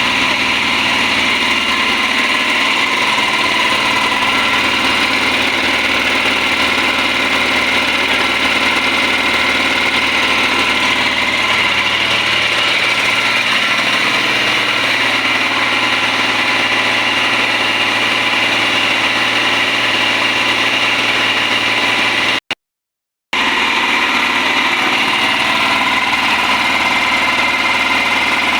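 Yanmar C220 air compressor running steadily. The sound cuts out for under a second about three-quarters of the way through, then resumes unchanged.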